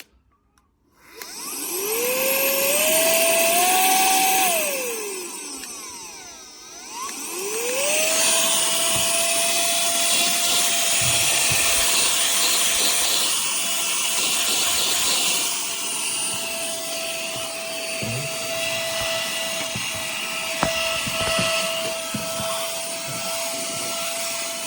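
Tiazhan cordless handheld mini vacuum cleaner switched on about a second in. Its motor whine rises in steps, winds down around five seconds in, and starts again about seven seconds in, then runs at a steady high whine with rushing airflow to the end. A few small knocks come in the second half.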